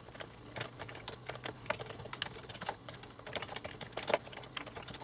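Computer keyboard being typed on: irregular runs of key clicks, some keystrokes louder than others, over a faint steady low hum.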